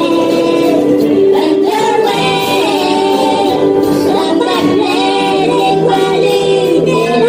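Cartoon Minions singing together in high, childlike voices over backing music, holding long notes.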